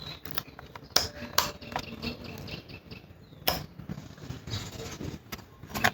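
Handling noise: scattered light clicks and knocks with some rustling, as parts and packaging are handled during unboxing. The sharpest knocks come about a second in, midway, and near the end.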